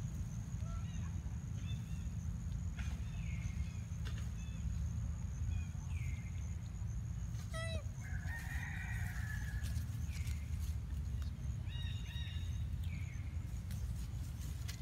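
Short, high animal calls that drop in pitch, repeated every second or so, with a longer call about eight seconds in, over a steady low hum and a thin steady high tone.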